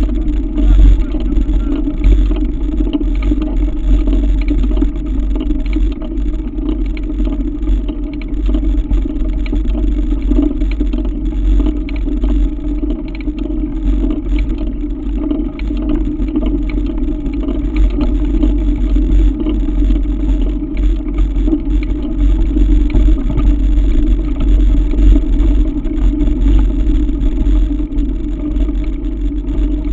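A mountain bike climbing a gravel track: a steady rumble of tyres rolling on loose gravel, with light rattling and clatter from the bike. It is picked up close by a camera riding on the bike.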